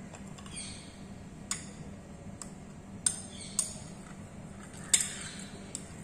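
Bent glass spreader clinking against the rim and bottom of a glass Petri dish while culture is spread over the agar: a few sharp, irregularly spaced clinks over a low steady hum.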